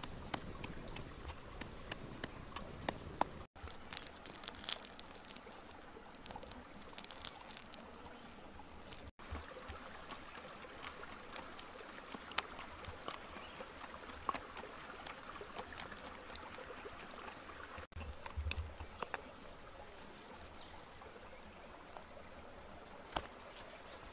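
Shallow rocky stream running, with scattered small clicks and knocks; in the first few seconds a wood campfire crackles.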